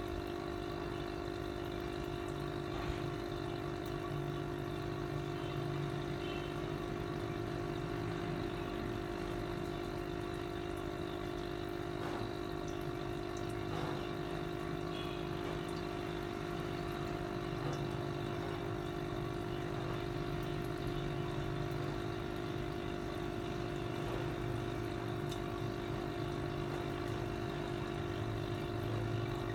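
Aquarium air pump humming steadily, with air bubbling up through the water of a goldfish bowl.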